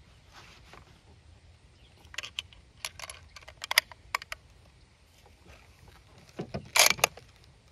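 Metallic clicks and clacks from the action of a .303 Lee Enfield No. 1 Mk III rifle being loaded by hand: a run of sharp clicks, then a louder cluster of clacks from the bolt being worked near the end.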